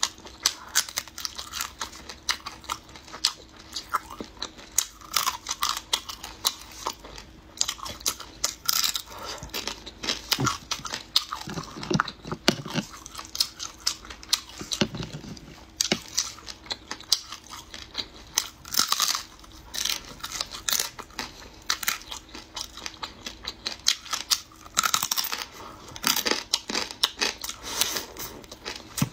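Cooked prawns being peeled by hand and eaten: shells tearing and cracking, then chewing and biting with many short crisp clicks.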